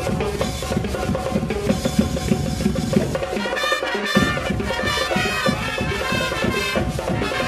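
A Latin-style marching band with brass and drums playing a dance tune with a steady percussive beat. About three seconds in, the low drums drop out for under a second, then come back in under the brass.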